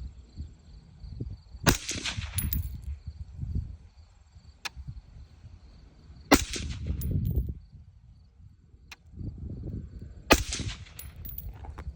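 Three suppressed gunshots from a KGM integrally suppressed firearm, about four seconds apart. Each is a sharp crack followed by a brief hissing tail.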